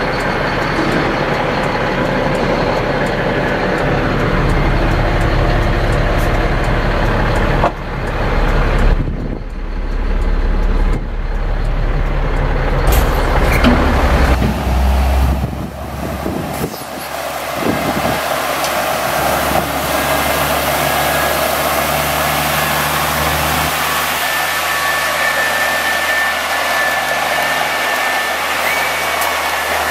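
Caterpillar C7 diesel engine of a Chevy C7500 water truck running steadily. Just past halfway the sound changes to a loud, steady hiss of water jetting from the truck's PTO-pumped spray heads, with the engine still running under it.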